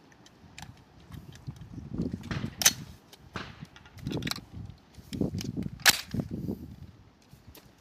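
Two sharp rifle shots on a high-power rifle range, about three seconds apart, with fainter distant shots and clicks from the firing line between them. Gusts of wind rumble on the microphone underneath.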